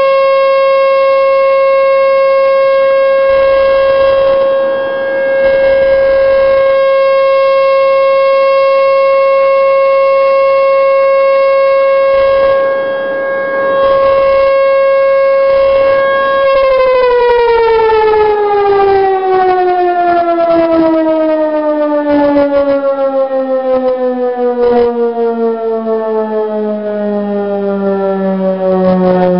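American Signal T-128 rotating electromechanical warning siren sounding one steady tone, swelling and fading as the horn turns. About sixteen seconds in it shuts off and winds down, the pitch falling steadily as the rotor slows.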